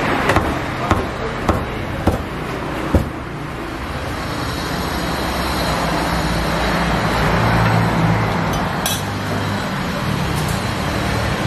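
A cleaver chopping roast duck on a wooden chopping block: five sharp strokes a little over half a second apart in the first three seconds. After that, steady street traffic noise with a low hum.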